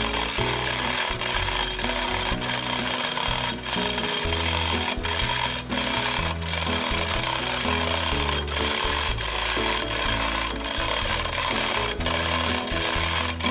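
Background music with a moving bass line and a beat, laid over the footage.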